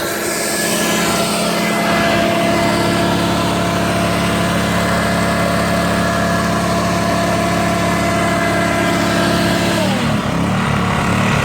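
Black Max BMi2100 inverter generator with a Honda engine, running steadily under the load of a 1,400-watt detailing vacuum; the vacuum motor's whine is steady over the engine hum. About ten seconds in, a whine slides down in pitch and the engine note shifts as the load changes.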